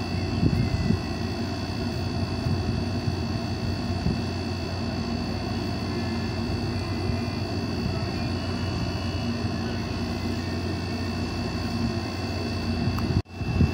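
A steady low engine drone with a thin, steady high whine above it. The sound drops out for an instant near the end.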